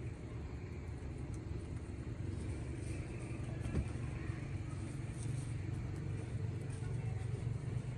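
A steady low background rumble, with one short click about four seconds in.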